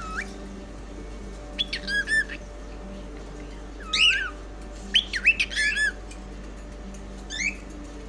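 Pet cockatiel giving short whistled, squawky calls in about five bursts, each a quick rising and falling glide, the loudest cluster around halfway through.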